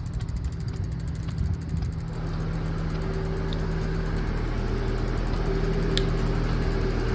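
Steady low hum of a diesel engine idling, getting louder and steadier about two seconds in.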